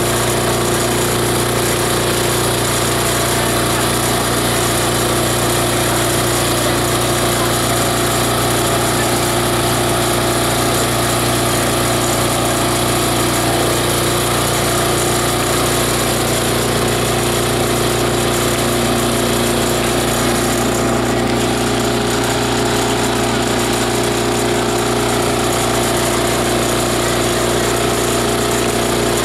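Truck-mounted multi-blade chopper-shredder grinder running steadily, its steel blades shredding organic material.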